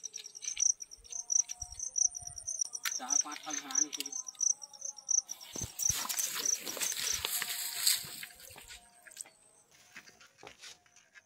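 Crickets chirping in a steady repeating rhythm. About five seconds in, the lit fuse of a bundle of sutli firecracker bombs sputters with a loud hiss for about three seconds, then fades.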